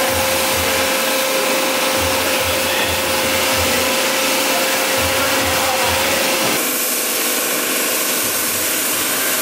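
Self-serve car wash high-pressure spray wand blasting water onto a car body: a loud, steady hiss with a faint pulsing beneath. The sound changes abruptly about two-thirds of the way through, as the spray switches to foam.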